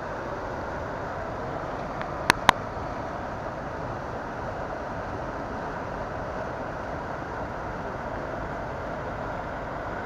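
Stream water rushing steadily over a low concrete weir and between stepping stones. About two seconds in come two sharp clicks close together.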